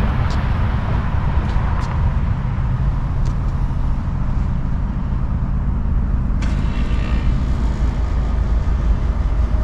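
Wind buffeting the microphone outdoors: a loud, fluttering low rumble under a fainter hiss.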